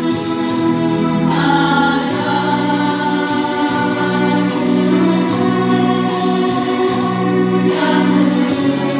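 Primary-school children's choir singing in long held notes, changing notes a few times, with a keyboard accompaniment.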